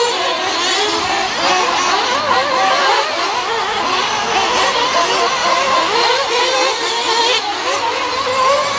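Several nitro-powered RC off-road racing cars' small two-stroke glow engines buzzing around the track at once, each revving up and easing off so that their pitches constantly rise, fall and overlap.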